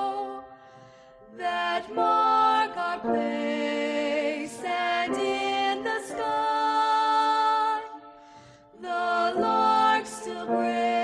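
Music of long held notes, breaking off twice for about a second before starting again.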